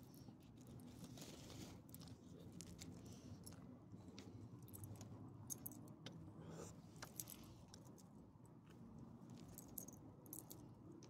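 Faint, light jingling of small dogs' collar tags and leash clip, scattered ticks and clinks as the dogs move and sniff about.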